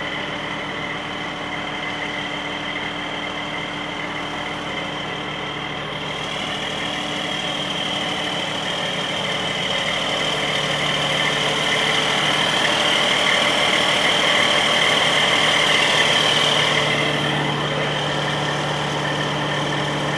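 Truck engine idling steadily, with a high whine over it that grows louder in the middle and eases back near the end.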